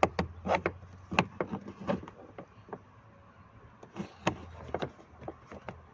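Irregular small clicks and taps of a metal pick prying at a plastic trim piece around a car's inner door handle, working it loose.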